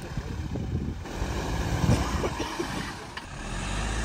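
Toyota Fortuner SUV's engine working under load as it crawls up a sandy, rutted bank off-road.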